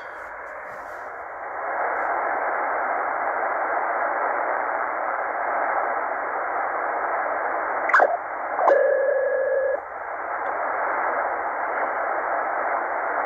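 Shortwave receiver in upper-sideband mode hissing with empty-band static as it is tuned through the 27.5–27.7 MHz range, the hiss a little louder after about a second and a half. Around eight seconds in, a short chirp and then a steady whistle last about a second.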